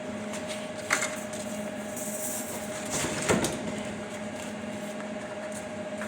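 Scrap baling press running with a steady hum, with a sharp click about a second in and a louder knock a little after three seconds, during the bale-tying stage.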